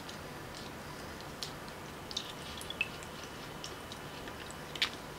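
A few light drips and small splashes of water from cured salmon roe being worked by hand and drained in a plastic colander, the loudest drip near the end.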